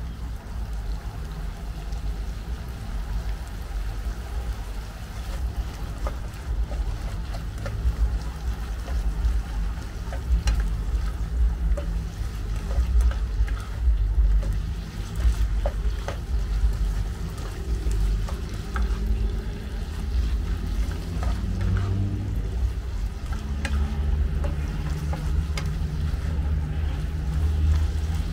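Food frying in a pan, with scattered clicks of a spatula stirring against it over a steady low rumble.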